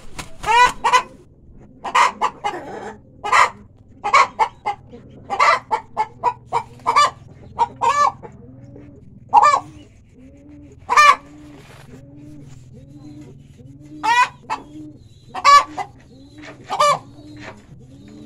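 Chickens clucking: a string of loud, short, high calls, about sixteen in all, with a softer low call repeating about once a second beneath them from halfway through.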